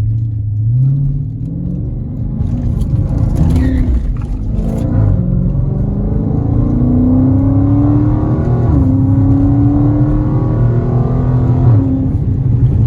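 Mopar SRT car's engine accelerating hard through the gears, its pitch climbing and then dropping sharply at upshifts about five, nine and twelve seconds in.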